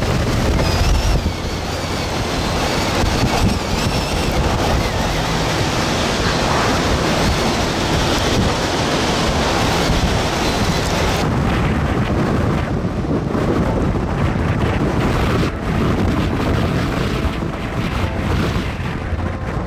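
Hurricane-force wind blowing hard and buffeting the microphone in loud, gusty rushes with a deep rumble; the high hiss eases a little past the middle.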